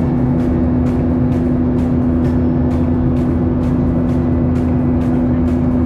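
Steady drone of an airliner's jet engines heard inside the cabin, a constant low hum. Background music with a steady beat plays over it.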